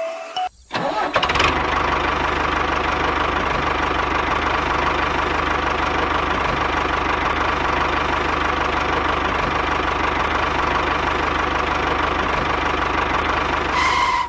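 An engine starting about a second in, then running steadily at idle.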